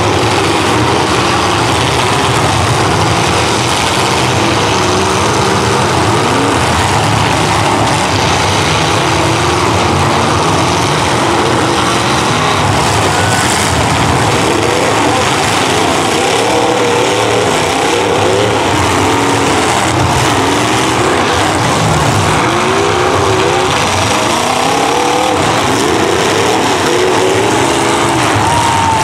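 Many demolition derby cars' engines running and revving at once, loud and continuous, with overlapping revs rising and falling.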